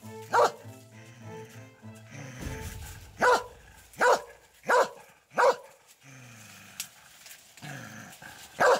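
Small hunting dog barking at a shot wild boar: six short, sharp barks at irregular intervals, a cluster of four in the middle and one near the end.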